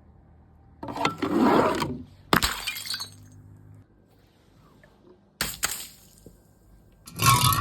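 Glass bottles breaking and shattering in separate events: a crunching break about a second in, a sharp smash with a short ringing tail a second later, another sharp smash past the middle, and a dense, loud crash of breaking glass near the end.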